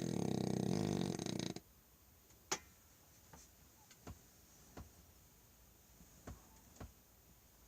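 French bulldog snoring in his sleep: one long snore that stops about a second and a half in, followed by a run of faint, irregularly spaced clicks.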